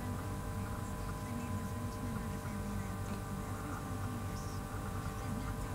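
Steady electrical hum made of several constant tones over a low rumble, with faint voices underneath.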